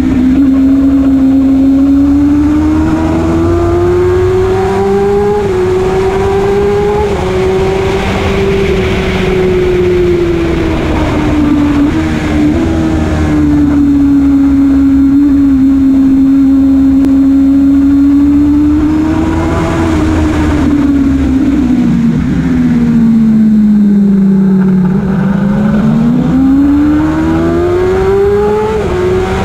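Motorcycle engine heard from on board at track speed, its pitch rising and falling as the rider accelerates, shifts and brakes through corners, over steady wind noise. The pitch falls to its lowest in a long dip near the end, then climbs again under acceleration.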